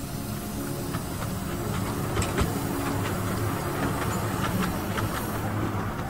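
Miniature ride-on railway train running along its narrow-gauge track: a steady rumble of the wheels with scattered sharp clicks from the rails, under a hiss of steam.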